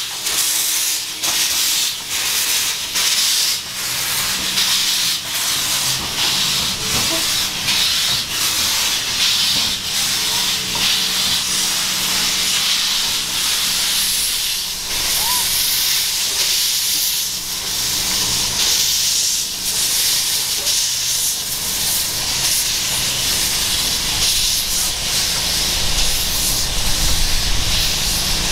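Narrow-gauge Orenstein & Koppel steam locomotive standing with steam hissing steadily, broken by many short sharp puffs.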